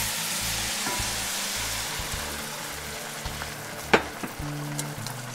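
Hot broth and diced tomatoes poured into a hot enameled Dutch oven of browned chicken and rice, sizzling and hissing. The sizzle is strongest as the liquid goes in and slowly eases off. A single sharp click about four seconds in.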